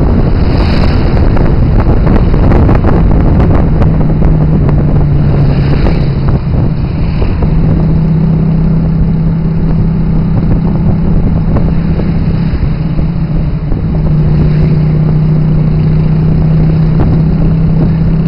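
Tuk tuk's engine running loud and steady while under way. Its pitch steps a few times as the tuk tuk changes speed.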